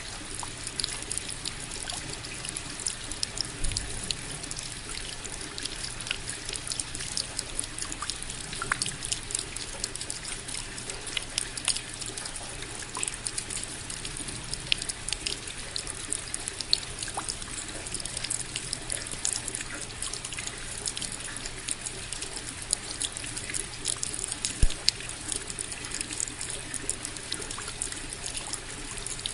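Steady rainfall: an even hiss of falling water with many separate drops ticking through it.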